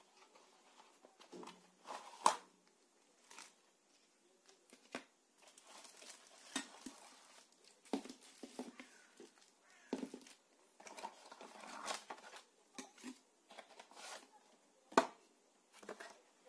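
Cardboard box and plastic packaging being handled during unboxing: irregular rustling and crinkling as the contents are pulled out, broken by sharp knocks and clicks, the loudest about two seconds in and near the end.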